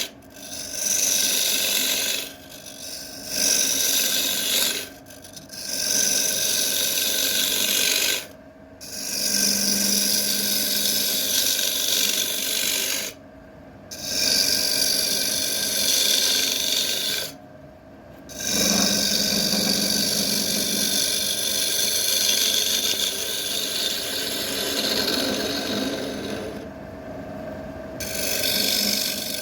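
Wood lathe running while a tool works the spinning wood in repeated passes, about seven stretches of cutting noise broken by short pauses, over a steady machine hum.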